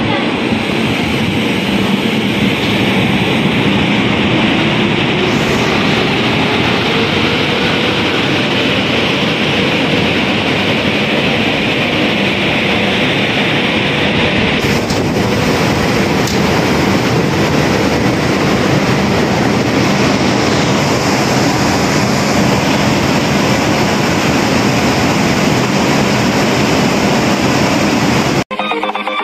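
WAP-5 electric locomotive moving along the platform: loud, steady running noise with a whine that rises in pitch over the first few seconds. The sound cuts off suddenly near the end.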